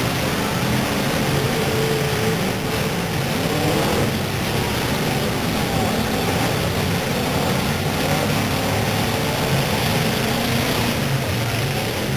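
Engines of several full-size demolition derby cars running and revving together as they push and ram one another. The sound is a steady, unbroken din, with engine pitches drifting up and down.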